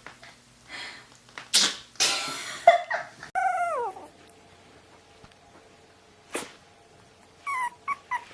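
A puppy sneezing several times in quick succession, then a brief falling whine. After a quiet stretch there are a few short, high cries near the end.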